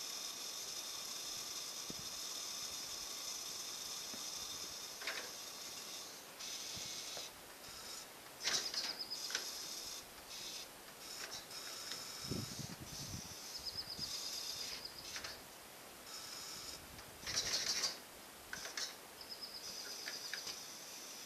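Small birds calling and trilling outdoors, with two brief louder scraping noises and a short low thump about twelve seconds in. No engine is running.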